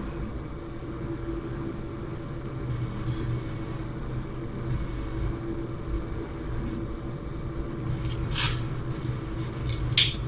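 Steady low hum of room background noise, with a short scraping rustle about eight seconds in and a sharper, louder knock of the camera being handled near the end.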